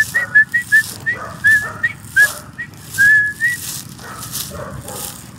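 A young dog whining and yelping in a rapid string of short, high, rising squeals, several a second, with one longer squeal about three seconds in. The squeals die away soon after, leaving scuffling in dry grass and leaves.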